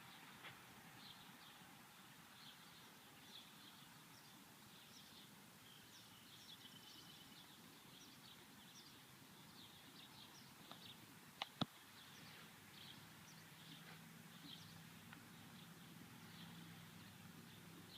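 Near silence with faint, scattered bird chirps, and two sharp clicks in quick succession a little past halfway.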